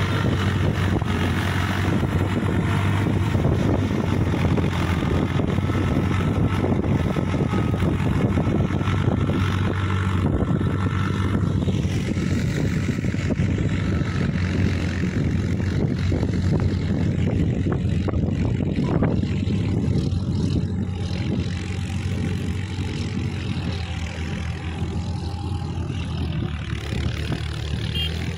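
Diesel tractor engine running steadily under load as the tractor tills a field.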